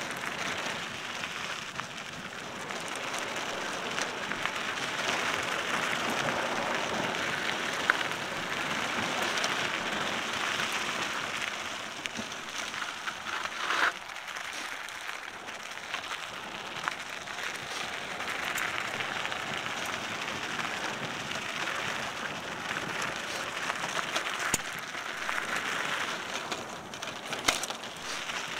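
Cannondale mountain bike's tyres rolling over a dry dirt single-track: a steady hiss, with a few sharp knocks from bumps.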